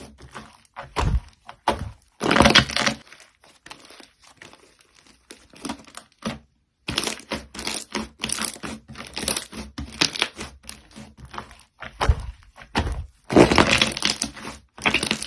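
Slime being squeezed, pressed and poked by hand, giving irregular bursts of crackling and popping clicks with a few soft low thuds. The loudest bursts come about two and a half seconds in and again near the end.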